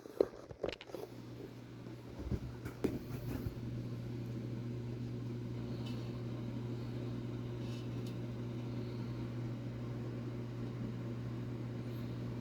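A few light clicks and knocks, then a steady low mechanical hum that sets in about two seconds in and holds at an even level.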